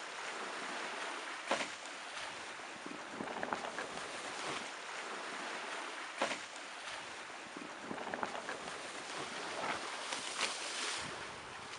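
Water rushing and hissing along the hulls of a Dragonfly trimaran under sail, with sharper wave splashes against the hull three times.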